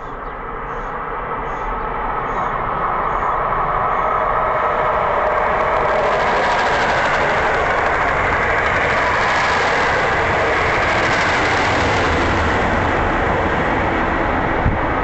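A passenger train running past on the tracks: the rumble and rail noise build over the first few seconds, then hold at a loud, steady rush.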